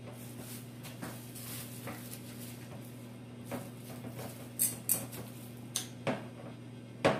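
Quiet food-prep handling noises: a disposable plastic glove rustling and light clicks of a spoon and bowl, with several sharper clicks in the second half and the loudest near the end. A steady low hum runs underneath.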